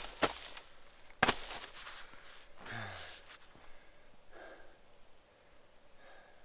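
Two sharp knocks about a second apart, then a person lets out a sigh, falling in pitch, about three seconds in, followed by two faint breaths.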